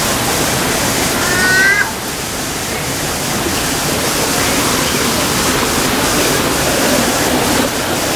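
Steady rushing of water from a stream or small waterfall among the plantings. A short, high, rising chirp-like call sounds over it about a second and a half in.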